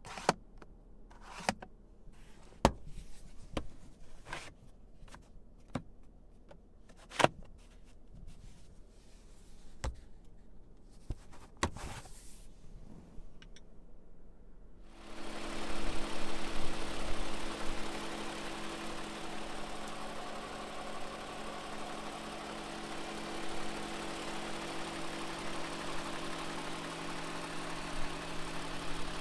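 A series of sharp clicks and knocks, then about halfway through the 2020 Toyota Camry TRD's 3.5-liter V6 starts up, runs loud for a few seconds and settles into a steady idle.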